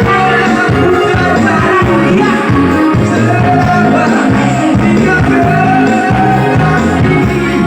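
Loud song with singing and a heavy bass line, played through a four-way speaker system under test.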